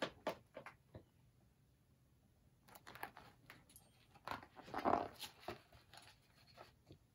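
Pages of a picture book being turned and handled: a few light taps, then soft paper rustling, loudest about four to five seconds in.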